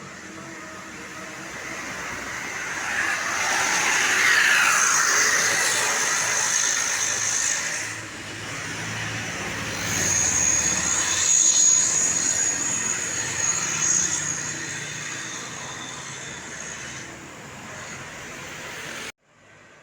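Large road vehicles, buses, passing close by twice, loudest about four and twelve seconds in, each pass carrying a steady high-pitched whine. The sound cuts off suddenly near the end.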